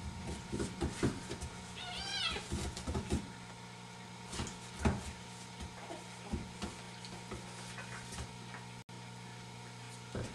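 A young kitten meows once, a high cry that rises and falls, about two seconds in, amid scattered clicks and scuffles of a puppy playing with it on a tile floor.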